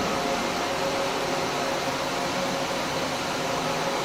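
Steady machine hum with a few faint steady tones, from a powered-up FEMCO HL-35 slant-bed CNC lathe running idle.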